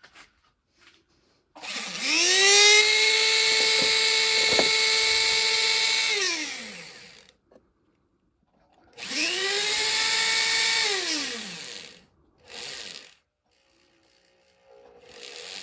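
Hand-held electric rotary tool run through a flex-shaft handpiece, switched on twice. Each time the motor's whine rises quickly to a steady high pitch, holds (about five seconds the first time, about three the second), then winds down as it coasts to a stop.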